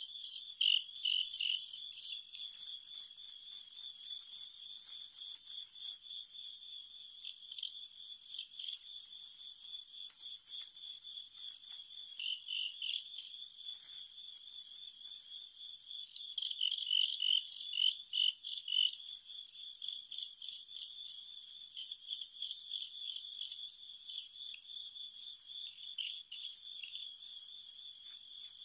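Crickets chirping: a steady, high, pulsing trill with louder bursts of chirps about a second in and again from about 16 to 19 seconds, with scattered sharp clicks.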